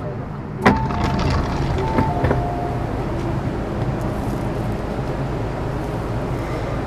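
Inside a Metro-Cammell M-Train carriage, a sharp clunk under a second in and a couple of lighter clicks are followed by a brief high two-note tone. A steady low rumble of the train carries on under it all.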